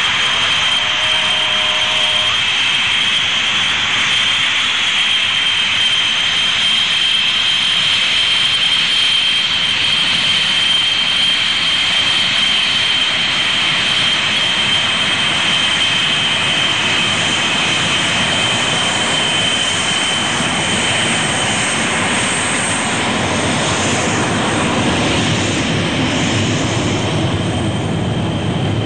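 Jet engines of Sukhoi Su-17 fighter-bombers running as they roll out and taxi after landing: a steady high whine over loud rushing noise. The whine fades after about twenty seconds as a deeper rumble grows, with one jet passing close near the end.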